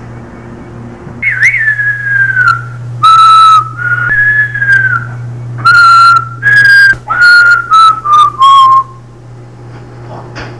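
A whistled tune of single notes, starting with a downward glide, then held notes, and ending in a quick run of notes stepping down in pitch. It is very loud and distorted. A low electrical hum runs underneath.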